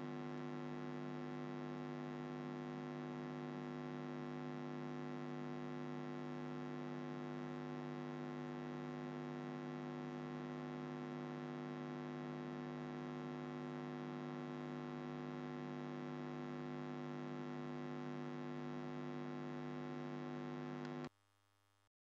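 Steady electrical mains hum, a buzz with many even overtones; it cuts off suddenly about a second before the end.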